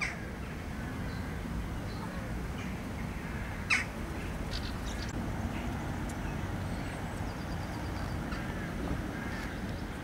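Western jackdaw calls: a short sharp call at the start and a louder one about four seconds in, with a few fainter chirps over a steady low rumble.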